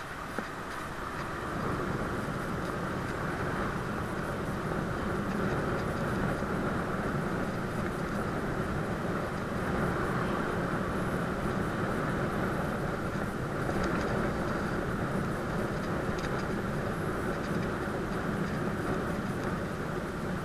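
Steady rushing noise of wind and bicycle tyres on asphalt during a fast downhill ride.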